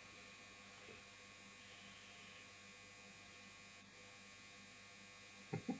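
Near silence: room tone with a faint steady electrical hum, and a few short sharp sounds near the end.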